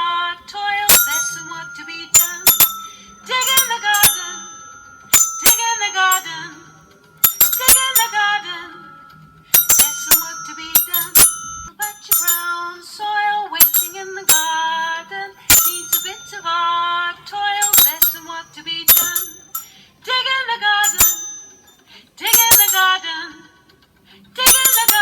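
Music with bright bell-like strikes about once a second over a melody that bends in pitch.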